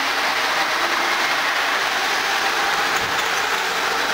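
Osaka Monorail 1000-series straddle-beam monorail train pulling out of the station, its motors running steadily as it starts to move off along the beam.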